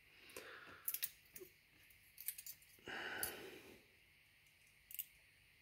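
Faint scattered clicks and light taps from hands handling the opened plastic housing of a cordless screwdriver and its parts, with a soft hiss-like rustle lasting about a second near the middle.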